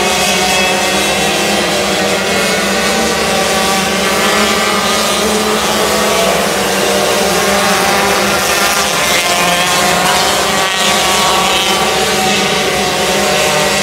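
Several 125cc micro sprint car engines racing on a dirt oval: a continuous loud, high-pitched drone of overlapping engines whose pitches rise and fall as the cars go through the turns and pass by.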